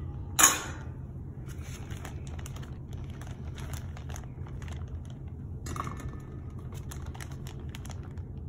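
Plastic zip-top bag of crumbled blue cheese crinkling and rustling in irregular small crackles as it is handled and opened. A single sharp clack sounds about half a second in, over a steady low hum.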